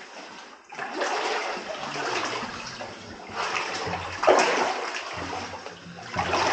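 Water sloshing and splashing as someone wades through deep flood water, in uneven surges, the loudest about four seconds in.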